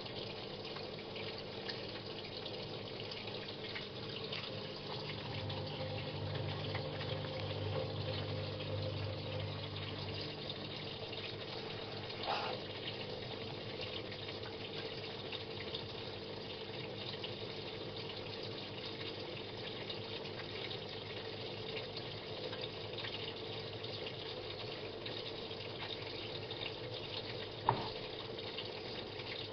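Samsung WA89V top-loading washing machine at the start of its rinse, water running steadily into the tub with a steady machine hum. A low hum rises for a few seconds near the start, and there are two short clicks, one near the middle and one near the end.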